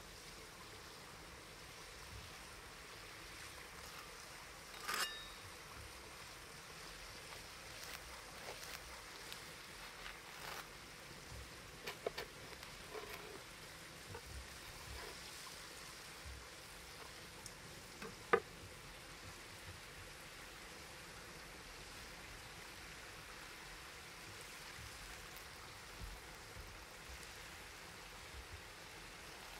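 Faint steady rushing background noise with a few scattered sharp clicks and taps, the loudest about 18 seconds in.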